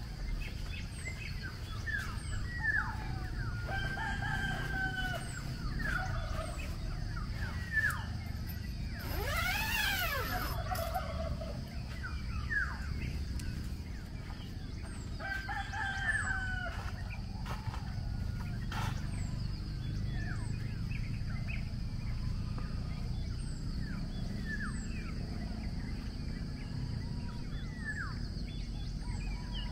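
A rooster crows once, about ten seconds in, over many short chirping bird calls and a steady high hum.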